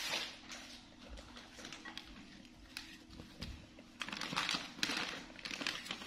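Paper tissues crinkling and rustling as they are handled and pulled from a box, densest in the last two seconds. Under it a steady low hum stops about four seconds in.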